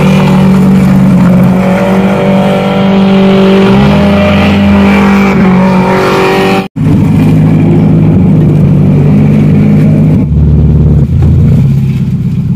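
Toyota KE70 Corolla's engine running hard at steady high revs. After an abrupt cut about halfway through, the engine runs on, its note shifting a couple of times near the end.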